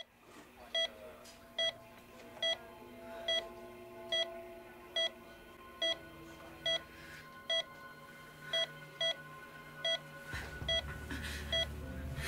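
Hospital heart monitor beeping at a steady pace, a little under one beep a second (about 70 a minute), with faint room ambience behind it. A low rumble comes in about ten seconds in.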